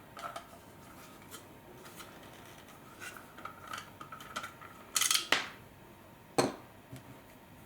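A thin T8 Torx screwdriver working a screw out from inside a Dyson V10's plastic handle, with small scattered clicks and clinks. A louder clatter about five seconds in and a sharp knock about a second and a half later.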